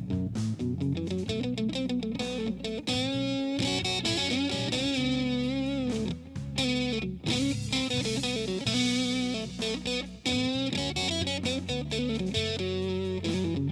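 Electric guitar solo in a slow blues, full of bent notes and vibrato, over steady low bass notes.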